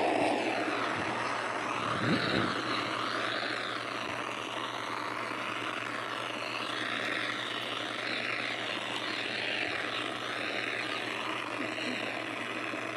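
A dense, distorted mash of many overlapping cartoon soundtracks playing at once, with warbling pitches that sweep up and down again and again over a steady low hum.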